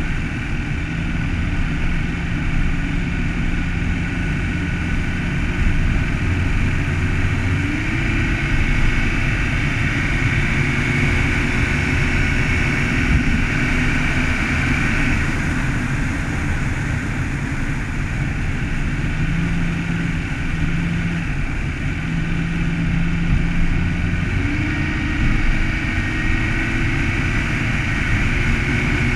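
Car driving along a road: steady engine and tyre noise, with the engine note rising a little about a quarter of the way in and again near the end.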